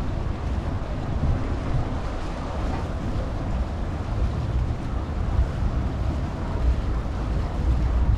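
Passenger river boat under way: a steady low rumble of the boat running through the water, with wind buffeting the microphone in gusts.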